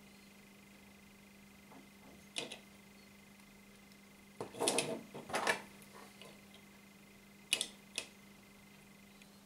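Handling noise from fingers tying a knot in nylon fishing line: a few short rustles and clicks, the loudest cluster in the middle and two sharp clicks near the end as the line is pulled tight, over a faint steady hum.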